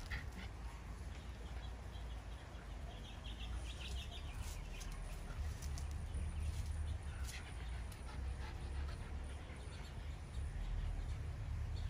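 Outdoor yard ambience: a steady low rumble that grows in the second half, with scattered faint, short bird chirps.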